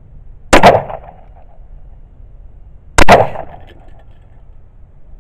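Two 9mm Glock pistol shots about two and a half seconds apart, each sharp and loud with a short echo trailing off.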